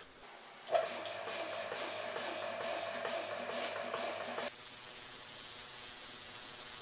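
Small high-pressure air compressor running, filling the arrow airgun's air reservoir towards 300 bar, with a held tone and a fast regular pulsing. About two-thirds of the way through, the sound changes abruptly to a steady even hiss.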